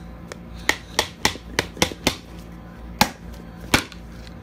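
Hard plastic clicking and knocking as a toy surprise egg is handled and pried open: about eight sharp, irregular clicks over three seconds.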